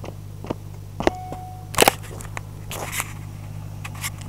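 Footsteps on asphalt coming closer, then loud knocks and rustling as the camera resting on the road is grabbed and lifted. A steady low hum runs underneath.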